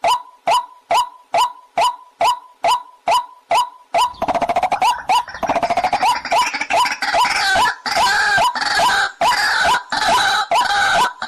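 Waterhen calling: a steady run of short single notes about twice a second. About four seconds in, a loud, dense chorus of overlapping croaking calls joins them, rising and falling in pitch, while the single notes keep going underneath.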